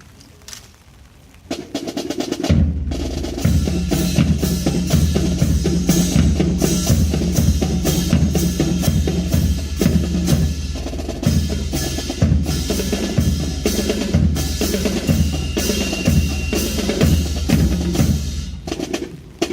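Marching drum corps playing a drum cadence: snare drums start about a second and a half in, bass drums join a second later with beats at several pitches, and the whole line stops together near the end.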